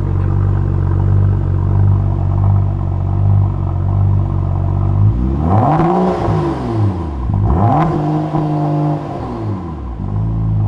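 BMW 135i's turbocharged 3.0-litre straight-six idling through a newly fitted Berk Technology full-race catback exhaust, then revved twice about five seconds in, each rev climbing and dropping back to a steady idle.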